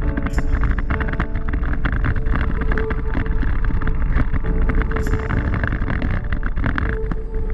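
Flight-deck noise of a Boeing 777-300 rolling on the ground: a steady low rumble with fine, dense rattling.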